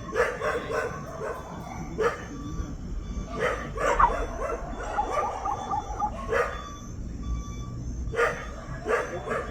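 A dog barking repeatedly at irregular intervals.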